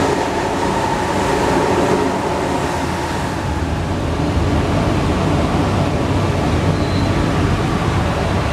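Alstom NS-93 metro train running at speed, heard from inside the car: a steady running noise with a faint whine that fades out about three and a half seconds in.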